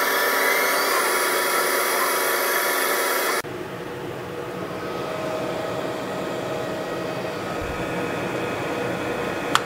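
CO2 laser cutter running while it cuts 12 mm plywood: a loud steady hiss with a whine. It breaks off suddenly about three seconds in to a quieter steady machine hum, with a short click near the end.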